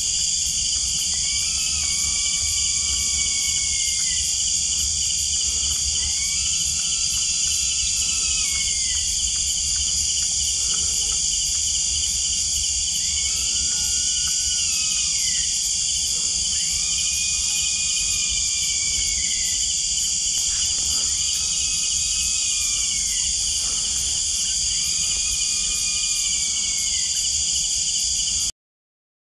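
Steady chorus of night insects and crickets. Over it, an unseen night animal gives about six long drawn-out calls a few seconds apart, each a strange arched cry that falls away at its end. The sound cuts off abruptly near the end.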